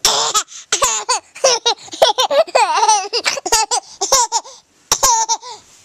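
A baby laughing: a string of short, high-pitched bursts of giggling, a brief pause, then one last burst near the end.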